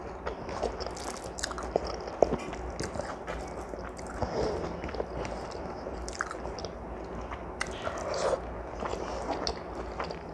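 A person eating rice and curry by hand: chewing, with many small irregular clicks and crunches, and fingers mixing food on a plate.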